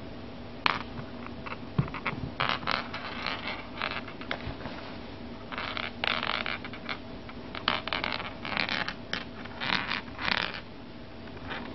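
Intermittent rustling and scraping: a string of short, irregular bursts, some clustered, over a faint steady hum.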